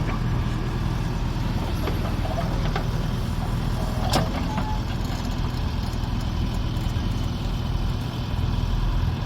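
Steady low rumble of a motor vehicle running, with a brief knock about four seconds in.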